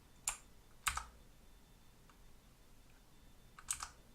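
Keystrokes on a Motospeed CK108 mechanical keyboard with clicky Blue switches: two sharp clicks about half a second apart near the start, then two more in quick succession near the end.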